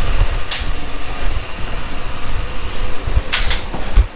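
Steady train running noise inside a passenger sleeper coach, with low rumbling thumps and two short hisses, one about half a second in and one near the end.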